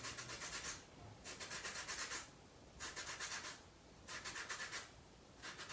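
Lemon peel being grated on a zester: about five grating strokes, each under a second, coming roughly every second and a half.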